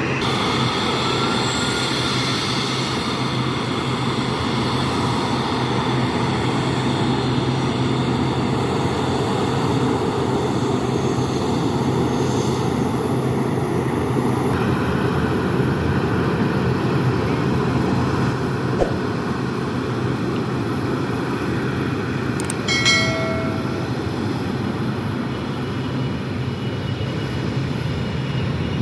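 Jet engines of a Boeing 737-300 cargo plane running steadily, a constant rushing noise with a faint high whine. A brief beep sounds about three-quarters of the way through.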